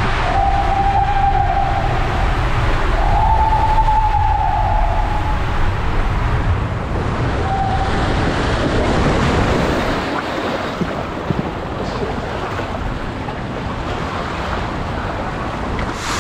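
Rushing water and a rider sliding fast through an enclosed water-slide tube, a deep rumble with a few wavering tones that rise and fall. About nine seconds in it gives way to water splashing and hissing as the slide runs out into the open runout lane.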